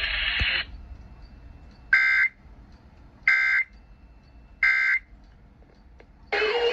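Three short screeching digital data bursts, evenly spaced about 1.3 seconds apart: the SAME end-of-message header of an Emergency Alert System broadcast on NOAA Weather Radio, signalling that the warning has ended. Music begins near the end.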